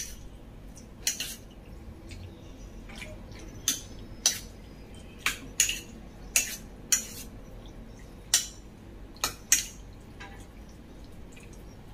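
Metal spoon clinking irregularly against a stainless steel bowl, about a dozen sharp clinks, while meat is stirred into a thick soy and plum sauce marinade.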